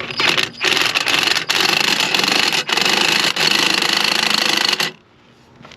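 Ingersoll Rand 1/2-inch cordless impact gun hammering on a lug nut in one long run of about four and a half seconds, with a few split-second breaks, then stopping suddenly. The gun's battery is low and it struggles to break the nuts loose.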